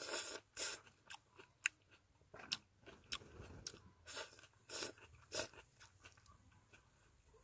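A person biting into and chewing juicy Dekopon (Hallabong) mandarin segments close to the microphone: irregular wet bites, smacks and chewing, loudest in the first second and again around four to five and a half seconds in.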